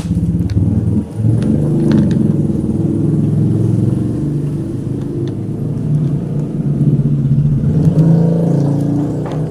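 A motor vehicle engine running nearby, a steady low rumble whose pitch shifts a little, with a few faint clicks of handling over it.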